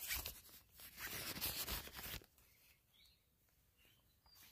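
Tent fabric rustling and brushing under a hand close by for about two seconds, then dying down to faint sounds.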